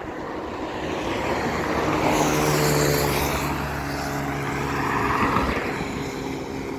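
A motor vehicle passing on the road: engine hum and tyre noise build to a peak about two to three seconds in, then fade.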